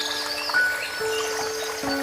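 Relaxing background music of held notes, a new note coming in about half a second in, another at one second and another near the end.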